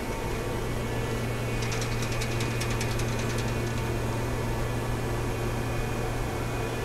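Steady hum of a powered-up CNC bridge mill, with a low drone and a few steady higher tones. A brief run of faint rapid ticking comes about two seconds in.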